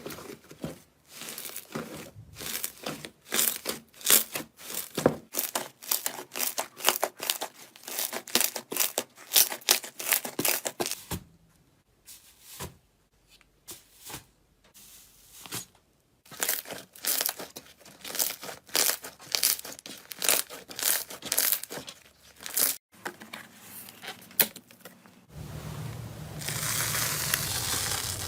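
Slime being squeezed and stretched by hand, giving rapid runs of crackling and popping clicks with a pause of a few seconds in the middle. Near the end it gives way to a steady rustling hiss.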